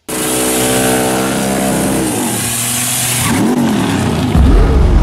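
Buick Grand National doing a burnout: the engine is held at high revs with a loud hiss over it for about three seconds, then the revs rise and fall, and a deep low rumble comes in about four seconds in.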